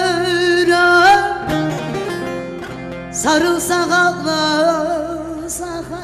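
A woman singing into a microphone over instrumental backing, holding long wavering notes; the phrase breaks off about a second and a half in and a new one begins about three seconds in.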